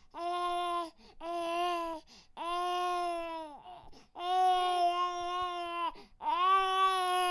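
A baby crying in five wails, each about one to one and a half seconds long with a short breath between them. Each wail holds a steady pitch and drops off at its end.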